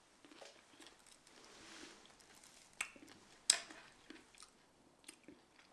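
A person chewing a mouthful of fresh redcurrants, quiet wet mouth sounds broken by two sharp smacks or clicks near the middle.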